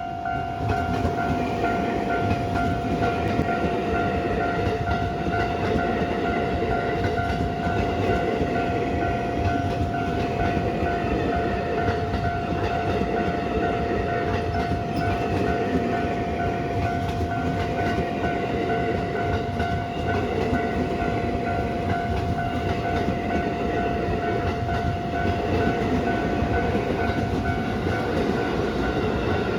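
Train running on the tracks with a steady rumble of wheels on rail. A constant whine sits over the rumble, and its level stays even throughout.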